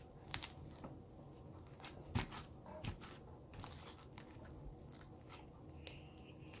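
Sticky slime being handled and pulled apart, giving scattered faint crackles and clicks.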